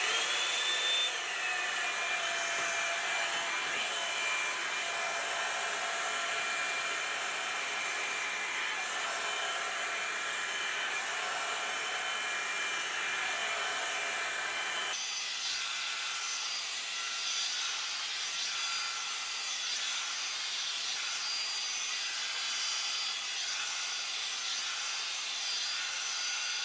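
Revlon Salon One-Step hot-air brush dryer running on its low setting as it is brushed through damp hair: a steady rushing blow with a high motor whine. About halfway through, the sound changes abruptly, the deeper part dropping away and the whine shifting higher.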